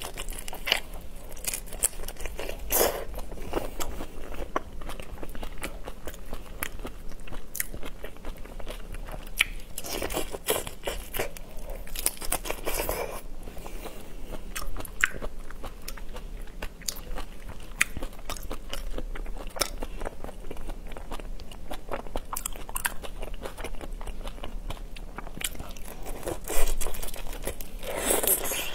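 Close-miked eating of whole shrimp in chili sauce: biting into the shrimp, crunching and chewing, with many small clicks and crackles and a louder burst shortly before the end.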